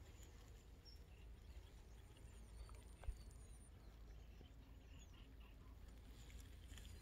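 Near silence: faint scattered bird chirps over a low rumble, with a single soft knock about three seconds in.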